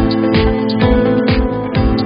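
Background music with a steady beat: a kick drum about twice a second under sustained pitched tones and light higher percussion.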